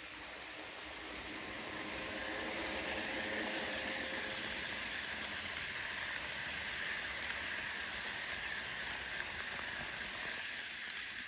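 HO scale model freight train rolling past close by on sectional track, its wheels and cars making a steady rushing hiss with a few faint clicks. It swells over the first few seconds as the cars come near.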